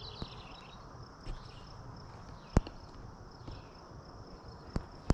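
Quiet outdoor background with faint high chirps now and then. A single sharp click about two and a half seconds in, and two lighter clicks near the end.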